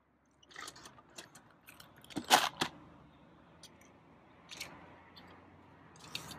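Scattered clicks and knocks of hard plastic Bruder toy parts being handled and unloaded, with a louder clatter about two and a half seconds in.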